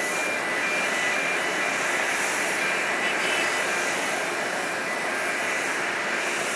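Twin-engine jet airliner climbing away, its engines a steady rushing noise.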